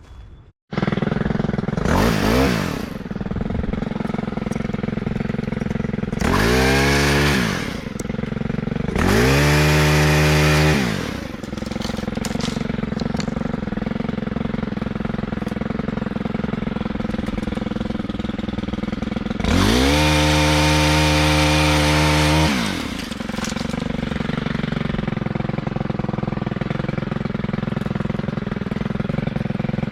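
Gas chainsaw idling and revving up in repeated bursts of one to three seconds, the longest about two thirds of the way through, while trimming low tree branches.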